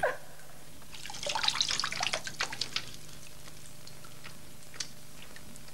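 Water splashing and dripping as a hand scoops it up: a flurry of small splashes about a second in, then a few scattered drips. The water is seawater.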